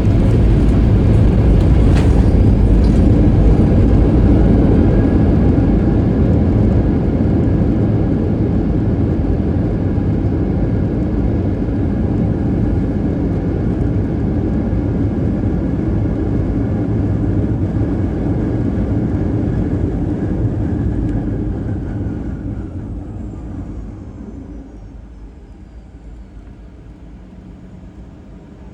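Boeing 737-800 on its landing roll: a loud roar of jet engines and rolling noise that slowly eases as the aircraft brakes hard. It then drops off sharply near the end, with a thin falling whine as the engines spool down to idle.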